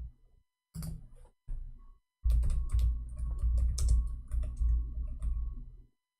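Typing on a computer keyboard: a few scattered keystrokes, then a fast run of typing from about two seconds in that stops shortly before the end.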